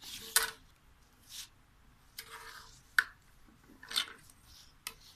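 A sheet of paper and a plastic ruler being shifted about on a table: scattered brief rustles and scrapes, with two sharp taps about half a second and three seconds in.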